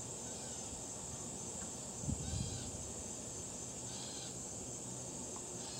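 Steady high-pitched drone of insects in the trees, with a few short, faint bird calls spread through it and a brief low rustle about two seconds in.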